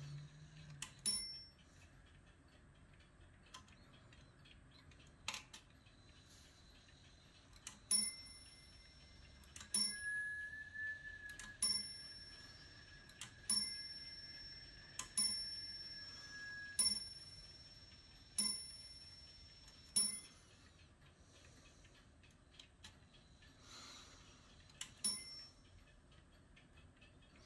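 Swiss Eluxa Boulle clock striking the hour with eight ringing strikes about a second and a half apart, after a single strike about a second in and before another near the end. The movement ticks softly between the strikes.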